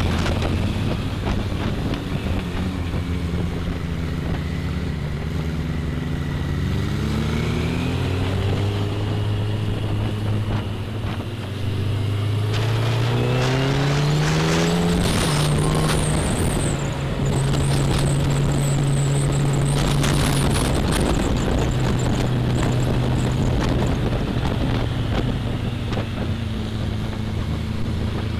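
Motorcycle engine pulling up a mountain road, its revs climbing twice and dropping at a gear change about halfway, then running steady. Rushing wind noise on the microphone grows louder as speed builds.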